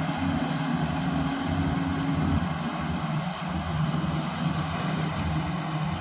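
Goose GS1028E combine harvester running steadily while it harvests rice, its engine drone mixed with the noise of the cutting and threshing machinery. About two and a half seconds in, one of the higher engine tones drops away and the note settles lower.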